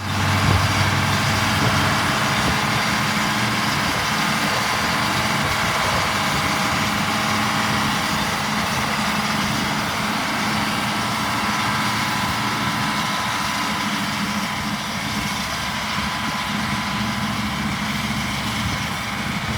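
Engine of vintage harvest machinery running at a steady, unchanging speed.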